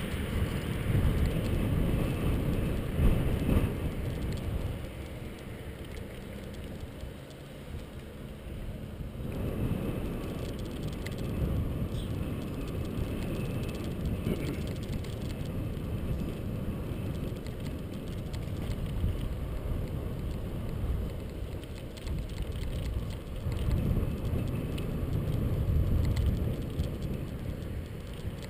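Wind buffeting the microphone of a bike-mounted action camera, with tyre and road rumble from a mountain bike riding along a paved bike lane. The rumble swells and fades unevenly.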